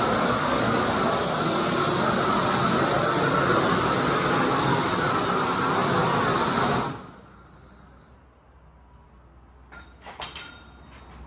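Propane shrink-wrap heat gun blowing with a steady hiss, shut off suddenly about seven seconds in. A few light clicks and knocks follow near the end.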